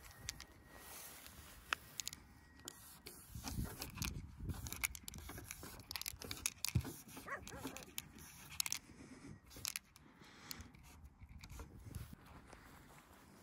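Paint marker nib scraping and squeaking across a painted metal sign as a tag is written, with scattered clicks and knocks from the marker and hand on the sheet metal.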